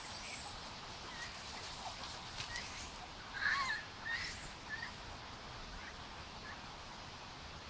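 Short, high animal calls and chirps scattered through the first five seconds, with a louder cluster about three and a half seconds in, over faint background noise.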